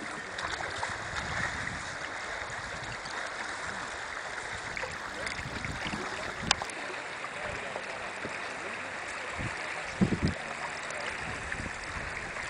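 River current rushing steadily over a riffle, a continuous hiss of moving water. A single sharp click comes about halfway through, and a few short low thumps come near the end.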